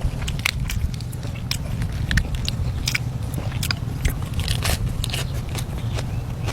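Close-up biting and chewing of crunchy food: irregular crisp crunches, a few a second, over a steady low rumble.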